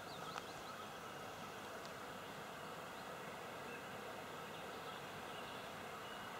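Steady outdoor background noise with insects buzzing, and a few brief bird chirps near the start.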